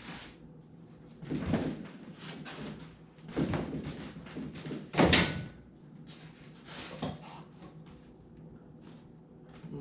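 Four dull thumps and knocks of handling work, the loudest about five seconds in, likely foam boat pieces being set and pressed into the glue.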